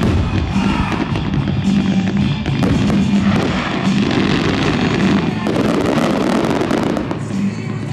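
Aerial fireworks bursting and crackling in quick succession over a loud music soundtrack.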